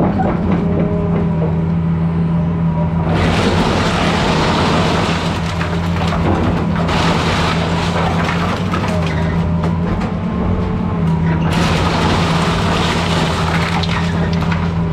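Diesel engine of a 20-ton-class excavator running steadily, with three long stretches of crunching and crashing as the machine breaks up the house's wooden framing and debris.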